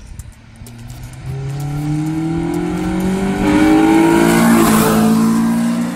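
Acura RSX Type-S with a K20 four-cylinder engine accelerating hard past the camera in a drive-by pull. The engine note climbs steadily in pitch, is loudest as the car goes by about four to five seconds in, then drops lower as it moves away.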